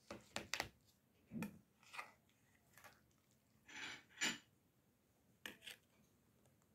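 Serrated knife sawing and scraping through crisp, syrup-soaked Baku pakhlava: a series of short, quiet crunching scrapes, the loudest pair around four seconds in as a piece is prised out of the tray.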